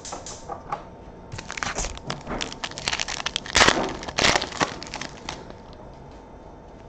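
Foil wrapper of an Optic basketball trading-card pack being torn open and crinkled: a run of sharp crackles, loudest a little past the middle.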